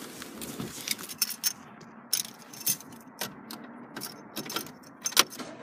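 A bunch of car keys jangling, with a scattering of sharp metallic clicks and rattles as the keys are handled.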